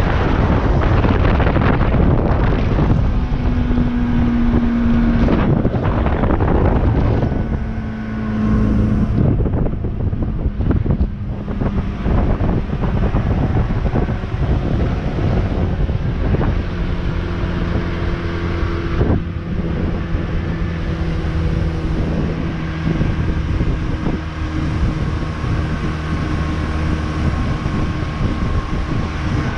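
Outboard motor of a Haines Hunter 550C runboat running underway, with heavy wind buffeting the microphone for the first several seconds; the engine's steady pitched hum comes through more clearly in the second half.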